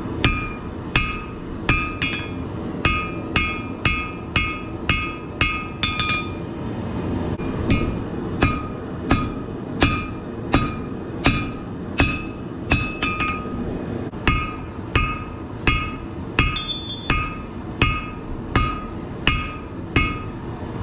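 Hand hammer striking hot rebar on an anvil, drawing the steel out to length. Regular blows come about two a second, each with a short metallic ring. There is a short pause about six seconds in, then the blows resume a little slower. A steady low rumble runs underneath.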